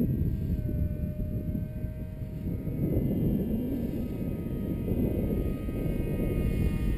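Radio-controlled Su-37 model jet in flight, its motor giving a steady whine of several high tones. A heavy low rumble of wind on the microphone is louder than the whine.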